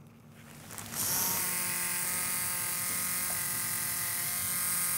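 Coil tattoo machine buzzing steadily as tattooing starts. It comes in about a second in.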